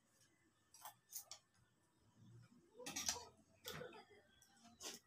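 Faint, scattered clinks and clicks of spoons on plates as people eat, a handful of separate taps with a small cluster about three seconds in.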